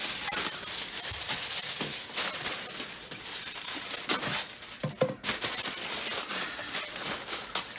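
Aluminum foil crinkling and rustling in rapid, irregular crackles as it is pulled from the roll and crimped around a mushroom grow bag.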